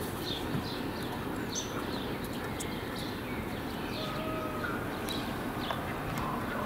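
Small birds chirping, many short high downward chirps repeated over a steady outdoor background hum.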